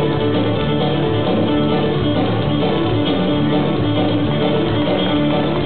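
Live fiddle-band music for jigging: guitar with fiddle playing a country-style jig tune at a steady beat.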